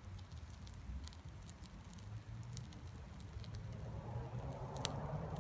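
Small wood fire crackling with scattered pops as fatwood kindling catches at the base of a stake stove, growing louder about four seconds in as the flames take hold.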